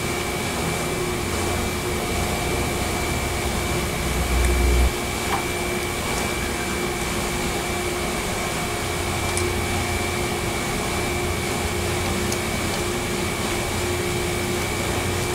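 Steady mechanical whir of a running motor, with a constant high whine and a lower hum. A brief low rumble comes about four seconds in, and there are a few faint clicks of parts being handled.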